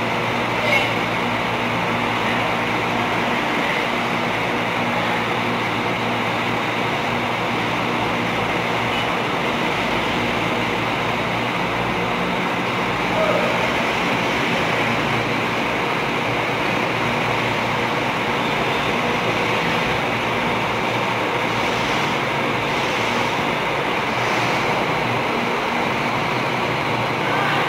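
Diesel engine of a Volvo B11R double-decker coach running steadily at low revs as the bus moves slowly, under a steady rushing noise, with a brief knock about a second in.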